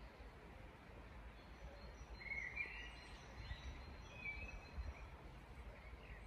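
Faint woodland birdsong: several birds giving short chirps and whistles, clearest about two and a half seconds in and again a little after four seconds, over a steady low rumble.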